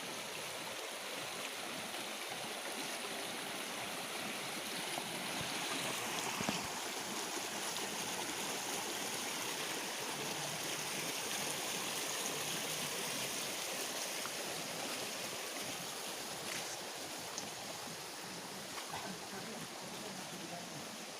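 Small river flowing and rushing steadily, a little louder through the middle, with one brief click about six seconds in.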